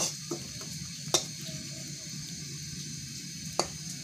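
Breadcrumbs being stirred with a spatula as they dry-roast in a pan, over a steady hiss. The spatula strikes the pan in a few sharp clicks: at the start, about a second in, and again near the end.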